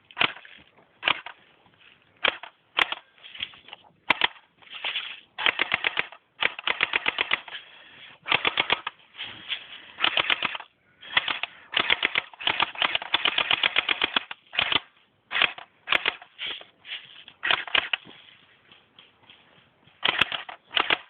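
Airsoft guns firing in repeated bursts of rapid shots, some short and some running a second or two.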